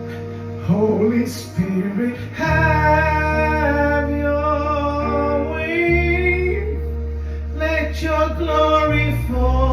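Worship song with male and female voices singing held, wordless or drawn-out notes over sustained bass and chords.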